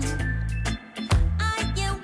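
Outro background music with a heavy bass line, drum hits and a melody over it.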